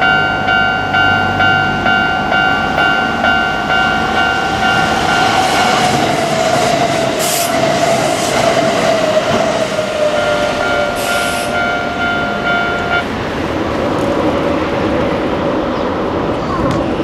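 Japanese level-crossing warning bell ringing in a fast, steady two-tone pattern as a Kintetsu train passes over the crossing with a loud rumble of wheels on rail. A whine from the train falls slowly in pitch while it passes, and there are two short hisses. The crossing bell cuts off about thirteen seconds in, once the train has cleared.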